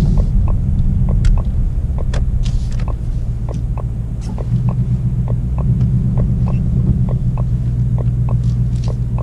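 Ford Mustang Bullitt's turn signal ticking in a clip-clop rhythm, the sound of a horse at a walk, over the steady low rumble of its 5.0-litre V8 idling.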